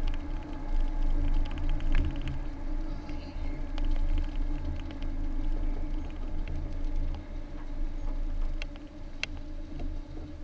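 Car driving in town traffic, heard from inside the cabin: a steady rumble of engine and road noise that eases near the end as the car slows to a stop behind traffic. A single sharp click comes about nine seconds in.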